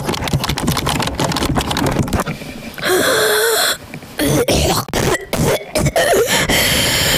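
Close-microphone ASMR sounds: quick scratching and tapping for about the first two seconds, then several loud, raspy throat-like bursts with a wavering pitch.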